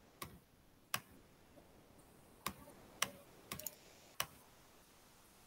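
Faint, sharp clicks, about seven at irregular spacing with a quick pair just past the middle, from writing words by hand onto an on-screen whiteboard on a laptop.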